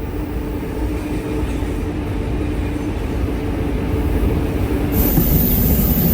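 Train running with a steady rumble and a faint hum. About five seconds in the sound abruptly turns louder and hissier, with a thin high whine on top.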